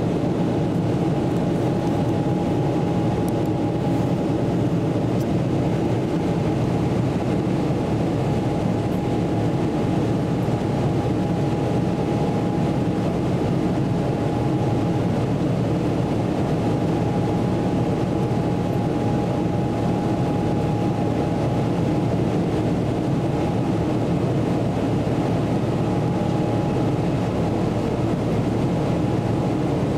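Steady cabin noise inside a Boeing 777-300ER airliner in flight: the low, even rush of its GE90 turbofan engines and airflow, with a faint steady high hum that fades about two-thirds of the way through.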